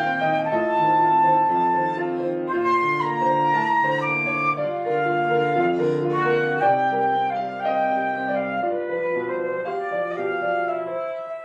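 A woodwind instrument, flute or clarinet, playing a melody of held notes over piano accompaniment, in a classical style.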